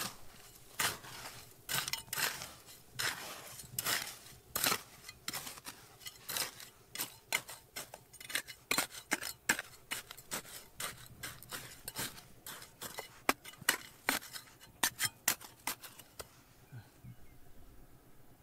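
A hand digging tool repeatedly scraping and striking hard stone and gravel, about two to three strokes a second, stopping a couple of seconds before the end.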